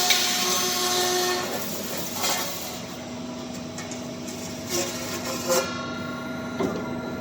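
Roll forming machine running: a steady mechanical hum under a louder hissing noise that dies away about a second and a half in, then several sharp metallic knocks.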